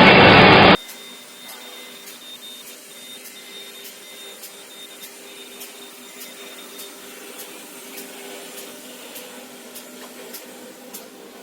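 Paper tube core winding machine running: a loud rushing noise cuts off abruptly under a second in, then a steady low machine hum with a faint regular tick about twice a second.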